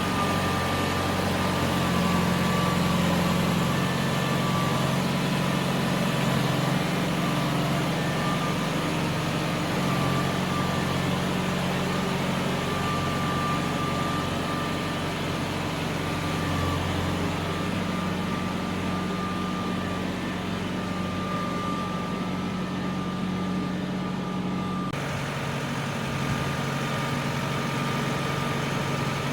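New Holland tractor engine running steadily while towing a chisel plow. About 25 seconds in, its tone changes abruptly.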